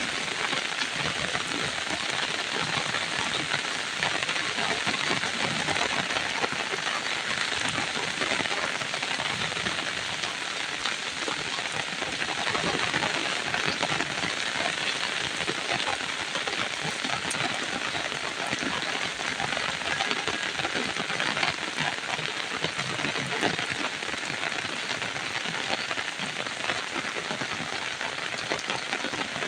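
Rain falling steadily, a dense even hiss of many drops pattering.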